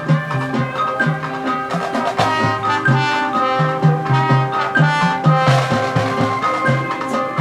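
High school marching band playing: brass over drums and mallet percussion, with a repeating low bass line and a crash a little past halfway.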